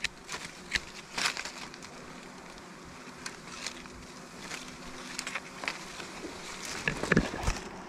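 A swarm of dwarf honeybees buzzing around their exposed comb, with many scattered sharp clicks and crackles of handled twigs and leaves, and a louder knock near the end.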